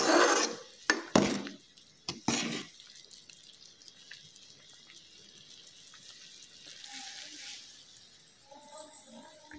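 A ladle stirring a thick, boiling curry in a metal pot: several short splashing, scraping strokes in the first three seconds. After that only the faint, steady noise of the curry boiling is heard.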